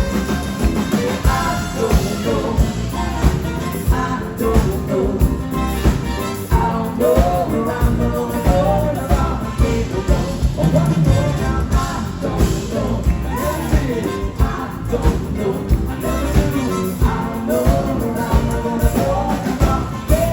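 Live band playing an upbeat rock song with a steady beat.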